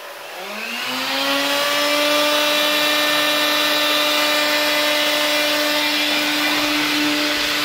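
AEG CX7 cordless stick vacuum's motor switched on: its whine rises for about a second and a half, then runs steadily, very loud with a strong vibration. This is typical of a fan impeller clogged with dirt and thrown out of balance.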